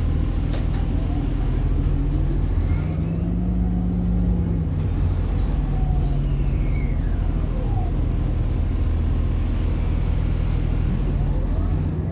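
A 2007 Orion VII 30-foot transit bus under way, heard from on board: a steady engine rumble with a drivetrain whine that climbs in pitch a few seconds in and falls away again past the middle as the bus speeds up and slows.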